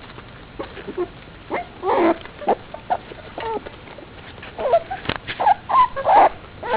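Four-week-old pit bull puppies whimpering, a string of short squeaky cries that bend in pitch and come thicker near the end, with a sharp click a little after five seconds.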